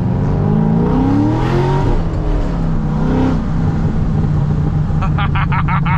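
C6 Corvette Grand Sport's LS3 V8, fitted with long-tube headers and with the catalytic converters deleted, heard from inside the cabin. The revs rise hard, drop about two seconds in, rise briefly again, then settle into a steady low drone at cruise.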